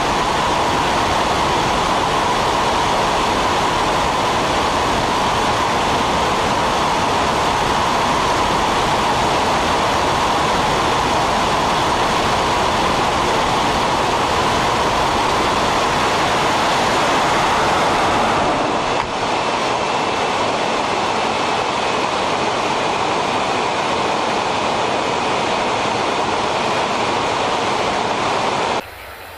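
Steady, loud rush of wind and engine noise inside the cargo hold of a military transport aircraft flying with its rear ramp open. It cuts off sharply just before the end.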